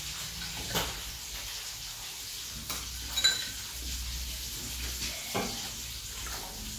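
Metal spoons scraping and clinking against ceramic bowls of bubur sumsum, with a few sharper clinks, the clearest about three seconds in, over a steady background hiss.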